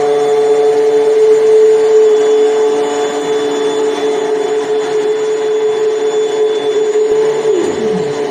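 Dynamic SMX600T commercial immersion blender's 850 W motor running at its fixed speed: a loud, steady motor whine. Near the end a second, lower tone slides down in pitch.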